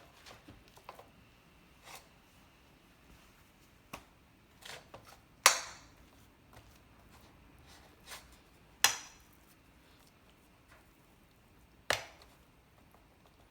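Kitchen utensils making occasional sharp knocks and clinks, spaced irregularly a second or more apart. The loudest comes about five and a half seconds in, and there are strong ones again near nine and twelve seconds.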